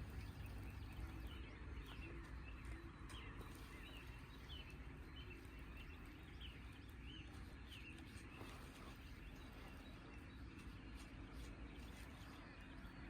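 Quiet outdoor ambience with a low steady rumble. From about three seconds in, a small bird gives a run of short, high chirps, roughly one to two a second, for a few seconds.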